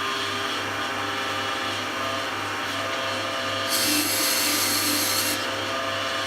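Wood lathe running steadily, with a tool held against the spinning wood; a louder hissing scrape from about four to five and a half seconds in.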